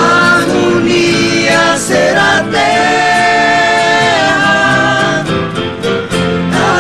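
A small band playing live: several voices singing long, held wordless harmonies together over acoustic guitars and keyboard.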